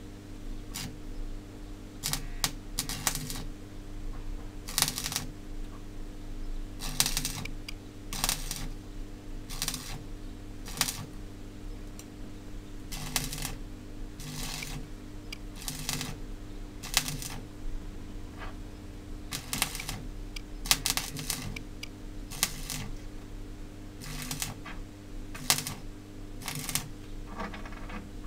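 Stick (arc) welding electrode tapped and scratched on a steel plate to strike the arc: a series of short, irregular crackles as the arc catches briefly and goes out, over a steady electrical hum.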